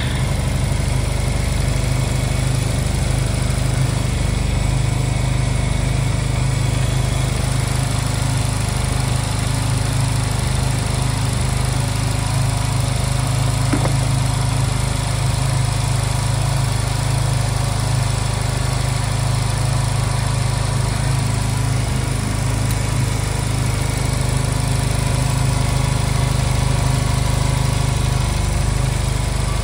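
Honda Silver Wing scooter engine running at a steady idle, with no revving. It is running again after a no-start, with new spark plugs fitted.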